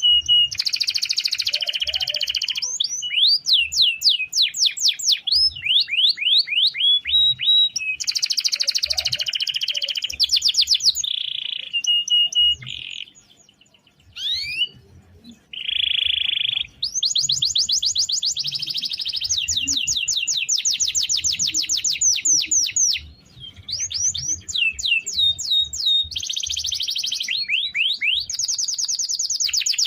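Domestic canary singing a long rolling song: fast trills of repeated sweeping notes, with a short break a little under halfway through.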